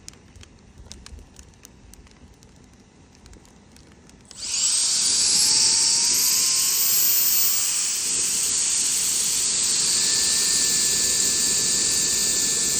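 A technical heat gun (hot-air gun) switched on about four seconds in: its fan spins up with a rising whine into a loud, steady, high-pitched rush of air. Before that, a few light clicks.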